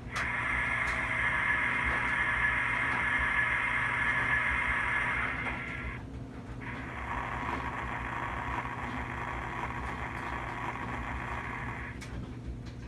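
Märklin 3070 digital model locomotive making a steady hissing, rushing sound during its sound test. It runs for about six seconds, breaks off briefly, then runs again for about five seconds.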